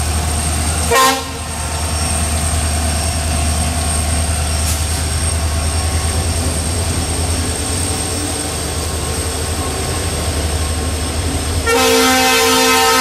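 Twin EMD WDG-4 diesel-electric locomotives, with two-stroke V16 engines, hauling a freight train past at close range: a steady low engine rumble, a short horn toot about a second in, and a long horn blast starting near the end.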